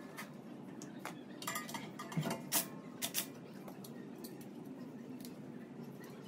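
Scattered metallic clinks and taps of tools and parts being handled at a car's front wheel hub, with a cluster of sharper clinks between about one and a half and three seconds in.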